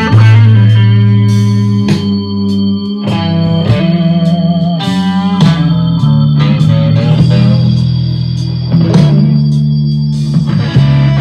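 Recorded guitar music with strong, steady bass notes, played from a CD through a Gradiente STR-1050 receiver and its loudspeaker.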